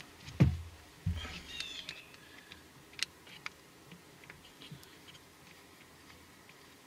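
Hand tools working a screw out of an outboard's vapor separator canister: two dull knocks in the first second or so, then scattered light clicks and scrapes that die away to faint taps.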